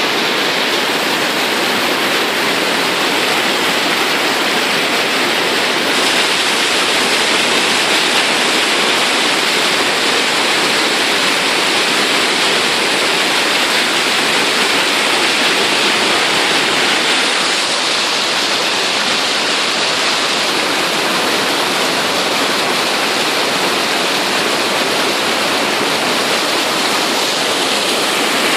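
Waterfall with water pouring out fast, a loud steady rushing roar.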